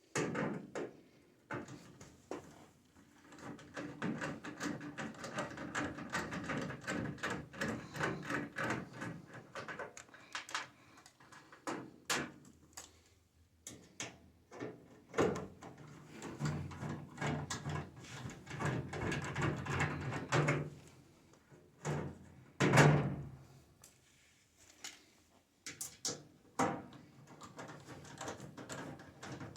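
Security Torx screws being driven out of a microwave's sheet-metal outer shell: repeated clicks, scrapes and rattles of the bit and screws against the metal casing, with a louder knock about 23 seconds in.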